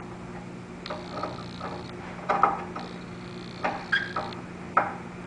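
Irregular clicks and knocks of bracket hardware being handled and fitted on a rack-mount LCD console drawer, about seven sharp taps over a steady low hum.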